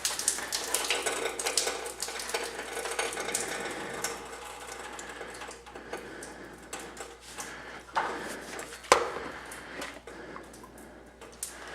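Light metallic clinking and scraping of tools worked against metal, with two sharper knocks about eight and nine seconds in.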